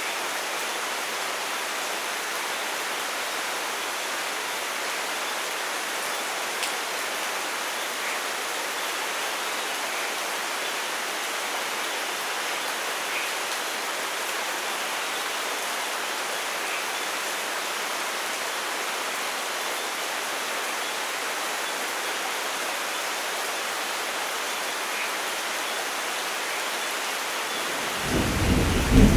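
Steady rain falling with an even hiss. Near the end a thunder rumble breaks in, low and loud.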